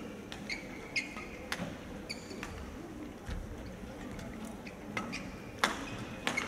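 Badminton rally: several sharp racket strikes on the shuttlecock, the loudest a little before the end, with short high squeaks of shoes on the court.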